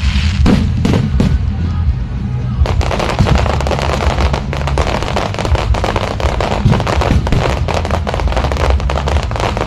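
Fireworks: a couple of bangs in the first second, then from about a third of the way in a dense, rapid crackling of many small explosions. Music with a heavy bass plays underneath.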